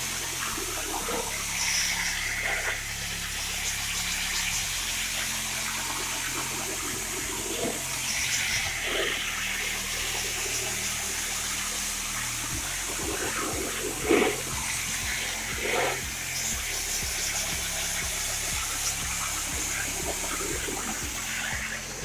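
Pressure washer spraying a jet of water into an air conditioner outdoor unit's condenser coil fins, a steady hiss of spray over a low hum, rinsing the coil cleaner out of the coil. A couple of sharper, louder splashes about fourteen and sixteen seconds in.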